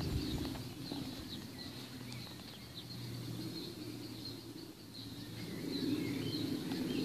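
Small birds chirping and singing, with a low steady rumble beneath.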